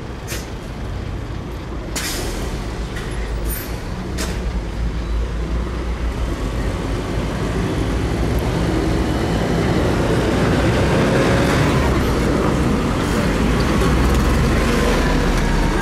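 A Mercedes-Benz Citaro city bus's engine drawing near and pulling past close by, its rumble growing steadily louder over the second half, amid street traffic. A few brief sharp sounds come about two and four seconds in, and a faint falling whine near the end.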